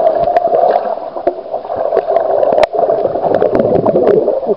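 Bubbles and churning water heard through a camera held underwater, just after a swimmer plunges in: a steady muffled rushing with many small pops and clicks.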